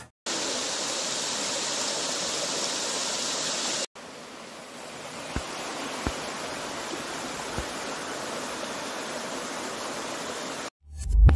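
Rainwater pouring over a masonry wall as a small waterfall and running over rocks in the stream below: a steady rushing. About four seconds in there is a cut, and the rushing is a little quieter after it.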